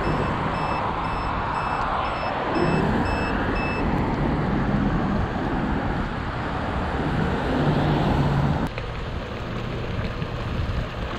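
Rushing wind and road noise from an electric scooter riding along wet streets. For the first four seconds a rapid electronic beep repeats about three times a second. The noise drops abruptly about nine seconds in.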